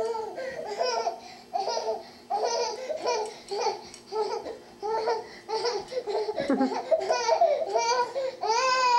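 A toddler's voice making a string of short laughing, babbling calls, about two a second, with a pacifier in her mouth, ending on a longer, higher call near the end.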